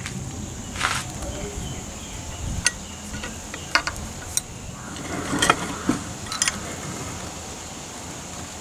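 A rusty metal cleaver being handled in a steel bench vise: a handful of short, sharp metal clicks and knocks, scattered between about one and six and a half seconds in, over a steady background hiss.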